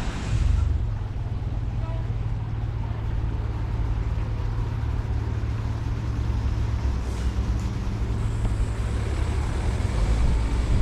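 Steady low drone of a running vehicle engine, an even hum with road or cabin noise over it.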